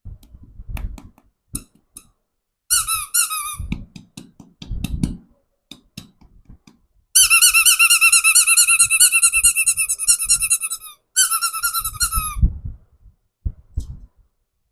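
A squeaky toy being squeezed, giving high, wavering squeals: one short squeal, then a long one of about four seconds and another just after. Soft handling knocks and rustles come between them.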